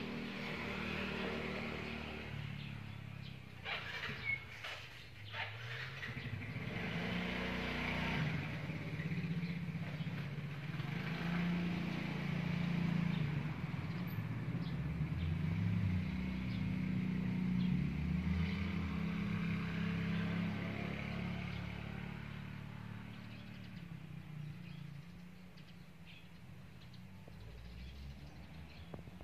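A motor vehicle's engine running, its pitch shifting as it goes, growing louder over the first half and fading toward the end. A few knocks about four seconds in.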